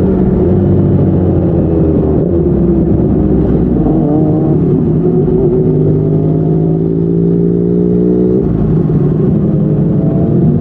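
Yamaha MT-09's three-cylinder engine through a Yoshimura R55 slip-on exhaust, heard riding along at speed. The note sags over the first couple of seconds, then climbs steadily under throttle. A little past eight seconds in it drops sharply at an upshift and starts rising again.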